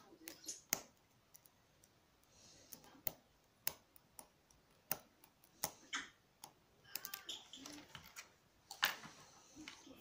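Lock pick and tension wrench working the pins in a small Squire padlock's keyway: irregular sharp metallic clicks and light scrapes, the loudest click about nine seconds in.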